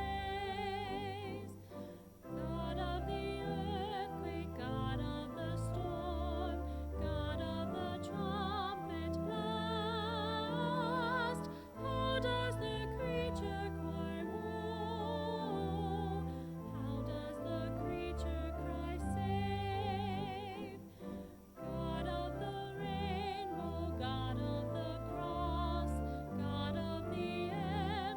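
A hymn sung in a classical style, with strong vibrato on the held notes, over steady instrumental accompaniment. The music dips briefly twice between phrases.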